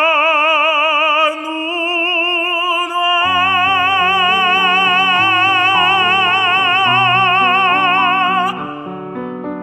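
Tenor holding the final long note of a Korean art song with wide vibrato, with piano chords entering about three seconds in. The voice stops near the end, leaving the piano alone.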